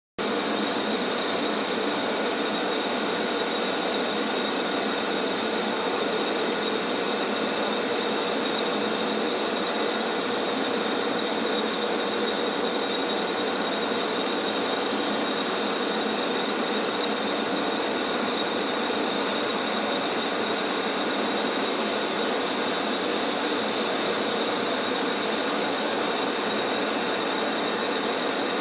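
ГРС 13 boring-milling machine face milling: an even, unchanging cutting and running noise with steady whining tones over it.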